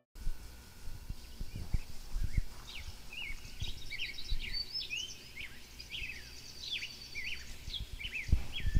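Birdsong: several small birds chirping and twittering in quick, mostly downward-slurred notes over a low background rumble, with a few dull low thumps, the loudest near the end.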